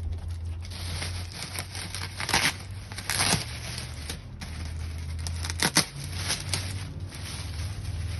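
Packaging being handled and pulled off during an unboxing: crinkling and rustling, with a few short, louder tearing rips, over a steady low hum.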